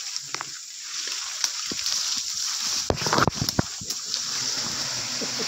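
Leaves and branches rustling and snapping as someone pushes through dense undergrowth, loudest about three seconds in, over a steady high hiss. A low droning hum comes in near the end.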